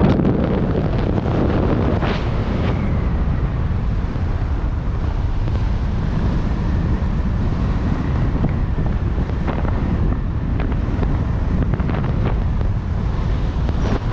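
Steady wind rushing over the camera's microphone while flying under an open parachute canopy, with a few faint short ticks in the second half.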